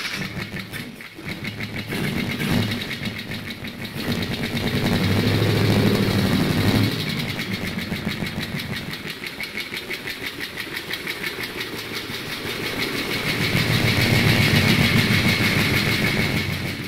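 A motorcycle engine running with a rapid, even beat. It is revved up twice: once from about a third of the way in, dropping back sharply, and again near the end.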